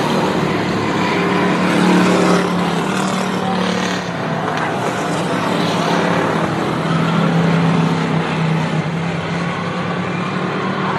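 Short-track stock cars racing on the oval, their engines running hard at speed, the engine note swelling and fading as cars go by.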